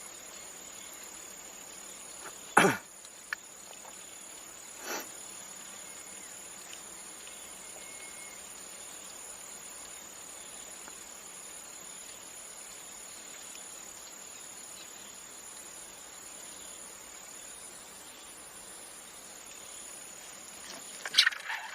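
Steady high-pitched insect chorus. A brief loud falling swish about two and a half seconds in, a fainter one about two seconds later, and a cluster of short knocks and rustles near the end.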